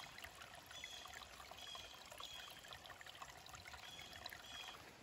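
Shallow woodland stream trickling over mossy rocks, faint and steady, with small scattered splashes and plinks.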